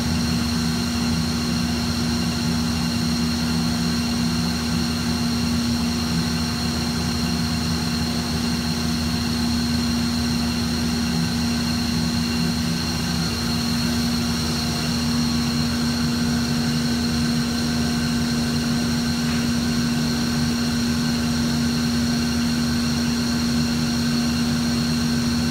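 Automated Locatelli wood lathe running steadily while turning an ash baseball bat: an even machine hum with a constant high whine.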